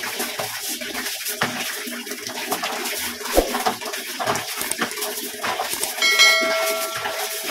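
Scouring sponge scrubbing a fan's wire guard in a basin of water, with small splashes and sloshing throughout. About six seconds in, a short bell-like chime rings for about a second.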